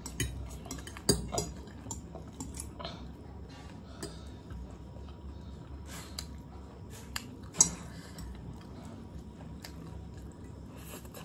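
Metal forks clinking and scraping on plates as noodles are twirled and picked up, a scatter of light clicks, with a sharper clink about a second in and a louder one a little past the middle.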